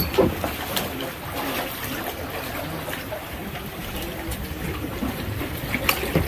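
Kayak paddles dipping into sea water, with water splashing and trickling off the blades and a few sharp knocks or splashes, one near the start, one just under a second in and one near the end.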